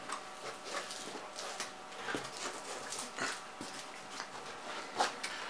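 Cardboard box flaps being opened and the paper and foam packing inside handled: an irregular run of rustles, scrapes and light knocks.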